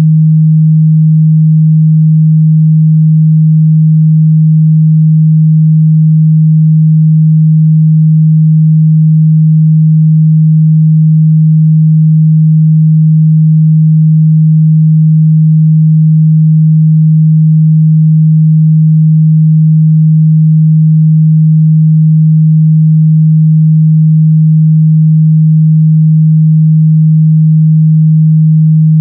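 A 157 Hz sine-wave test tone: one steady, loud, unchanging low hum, used to check how speakers and headphones reproduce the mid-bass.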